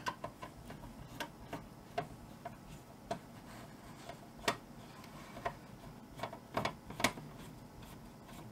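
Phillips screwdriver backing a small screw out of a network video recorder's case: a string of light, sharp clicks at irregular spacing as the driver turns in the screw head, a few of them louder.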